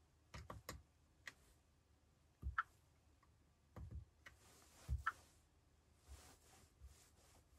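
Faint, irregular clicks and light taps, some in quick clusters of two or three, a few with a brief ringing tone.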